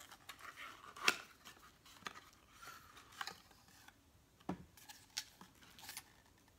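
Paper packaging being handled: scattered short rustles and clicks as a rolled paper scroll is taken out and turned over, the loudest about a second in.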